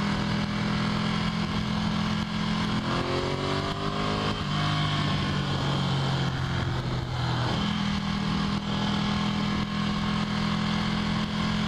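Motorcycle engine running under way, with wind rush. Its pitch climbs about a quarter of the way in, drops to a lower note, then steps back up past halfway.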